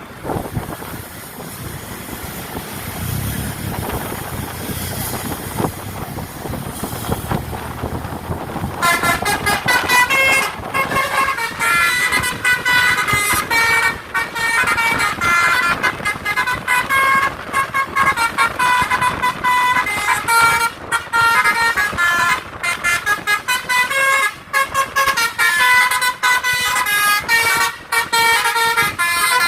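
Telolet-style basuri musical horn, the multi-tone air horn fitted to Indonesian buses, playing a quick melody of stepping notes over and over, starting about nine seconds in. Before it, vehicle engine and traffic noise.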